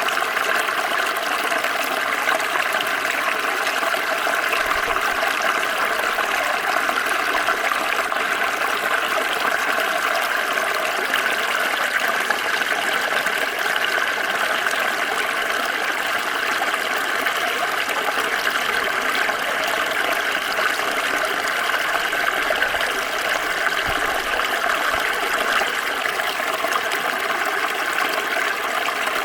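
Water flowing and splashing over stones in a small stream, a steady rushing burble.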